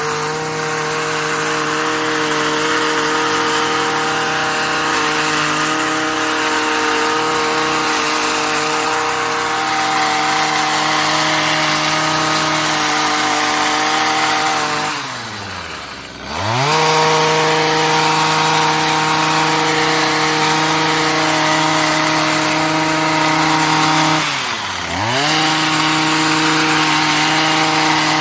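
Stihl HS45 two-stroke hedge trimmer running at full throttle while trimming shrubs. Its engine note drops steeply about halfway through as the throttle is let off, then revs straight back up, and dips briefly again about three quarters of the way through.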